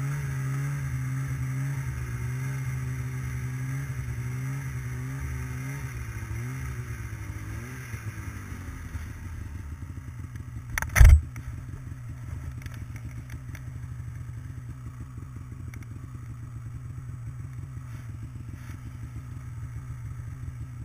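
Snowmobile engine running on the trail, its pitch wavering up and down with the throttle, then falling away about eight seconds in to a lower, rougher steady run. A single loud thump about eleven seconds in.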